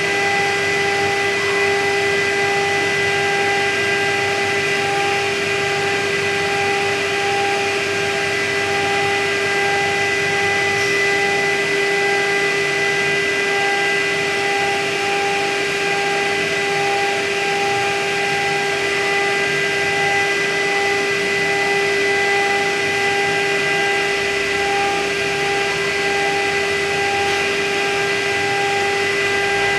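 The high-speed spindle of a MillStep PAX6050V2 CNC router running steadily while a small engraving cutter mills a groove in a plastic plate. It makes a constant whine over a steady hiss from the compressed-air nozzles blowing chips off the cut.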